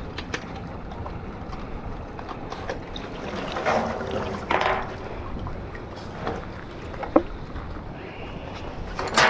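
Water sloshing and scattered knocks as a stand-up jet ski is handled alongside a wooden dock, over a steady low rumble. There are two louder swishes about halfway through and a sharp knock near the end.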